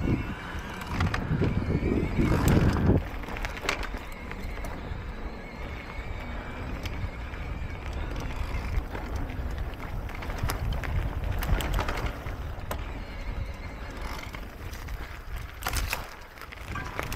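Electric mountain bike riding along a dirt singletrack: knobbly tyres rolling over the dirt, with scattered clicks and rattles from the bike over bumps and a low wind rumble on the camera microphone.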